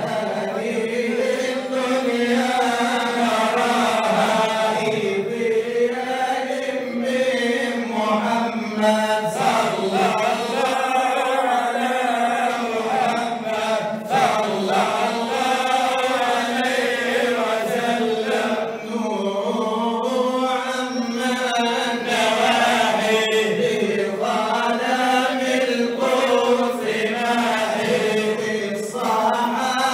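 A group of men chanting devotional praise (madih) together, led by a singer on a microphone, with no break.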